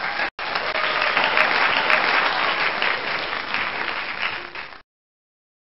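Canned game-show applause, a crowd clapping, rewarding a correct answer. It lasts nearly five seconds and cuts off abruptly.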